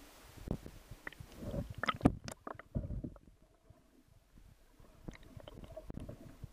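Water knocking and sloshing against an underwater camera: irregular muffled thumps and sharp clicks, the loudest a crack about two seconds in. A faint steady hum runs under the second half.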